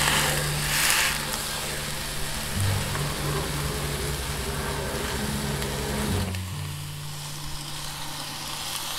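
Cabbage, potatoes and mushrooms sizzling in a hot pan over a camp stove, loudest in the first second and dropping away about six seconds in, under background music with a low bass line.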